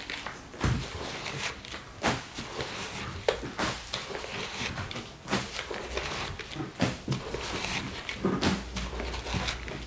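Rubber boots stepping on wet plastic floor sheeting while granular cleaning powder is scooped from a plastic bucket and scattered over a rug. Irregular short scuffs and rustles come about once a second.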